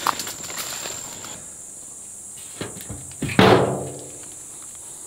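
A hand slapping the side of a box-type game feeder: a light knock, then a loud one with a ringing tail about three and a half seconds in. Before it, footsteps crackle through dry brush, and insects buzz steadily throughout.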